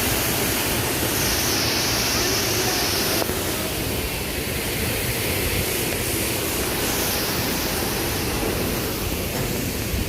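Steady rushing noise of a waterfall. A thin, higher hiss over it stops abruptly about three seconds in.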